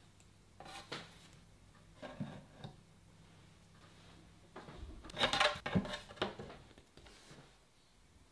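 Clicks and knocks of a wooden box easel and a canvas panel being handled, the panel being set on the easel. A couple of single knocks come first, then a louder rattling cluster of knocks about five seconds in.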